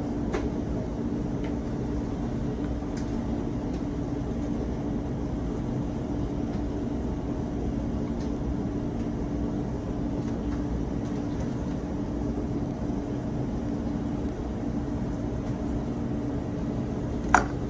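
Steady low machine hum with a constant droning tone, with a few faint taps of the knife on the cutting board and a sharper click near the end.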